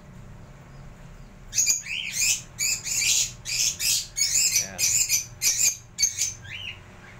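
Caged lovebirds calling in a rapid string of short, shrill chirps and squawks. The calls start about one and a half seconds in and die away around six seconds in.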